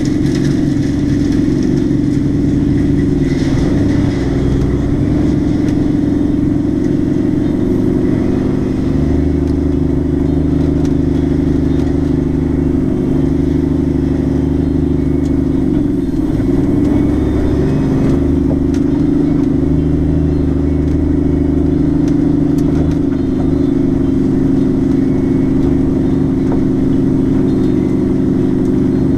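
Diesel engine of a semi truck loaded with logs, heard from inside the cab, running steadily at low speed. Its pitch steps down and back up a few times.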